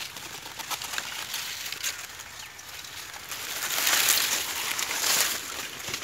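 Dry maize leaves and stalks rustling and crackling. The rustle swells louder about three and a half seconds in and lasts around two seconds.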